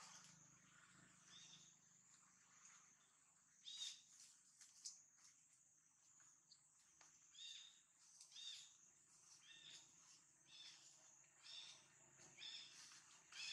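Faint, repeated short high-pitched animal chirps, about one or two a second, starting a few seconds in, with a couple of brief rustles.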